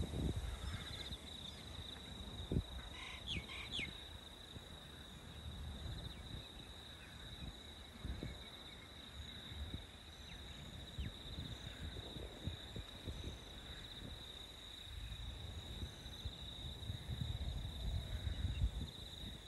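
Insects trilling in one steady, high, even tone, with wind gusting on the microphone in low rumbles that grow stronger near the end. A few short bird chirps come about three seconds in.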